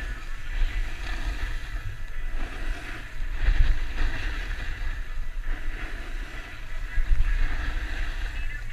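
Wind buffeting the microphone of a skier's action camera while skiing downhill at about 15 to 20 mph, a steady rumbling rush that swells and fades, mixed with the hiss and scrape of skis carving over packed snow.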